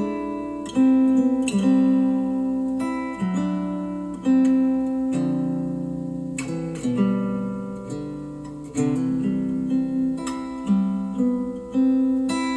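Acoustic guitar music played back through Polk Audio TSi 200 bookshelf speakers: slow chords, one struck every second or so and left to ring out before the next.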